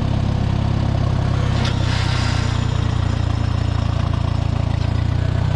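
1969 Minneapolis Moline Jet Star 3 Super tractor engine running steadily, with a brief rush of higher noise about two seconds in.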